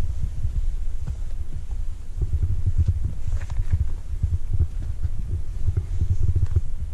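Wind buffeting the microphone on an exposed mountain ridge: a heavy, uneven low rumble that keeps pulsing.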